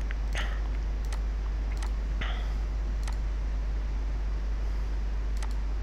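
A few sharp, isolated computer mouse clicks, spaced irregularly, over a steady low hum.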